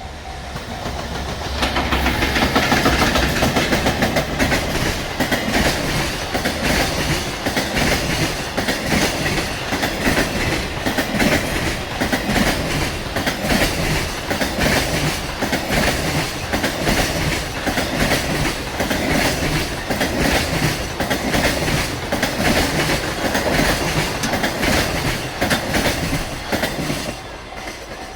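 A JR Freight EF210 electric locomotive pair hauling a long rake of Koki container wagons passes close by at speed. The wheels make a loud, rhythmic clatter over the rail joints, building up in the first two seconds and easing off near the end.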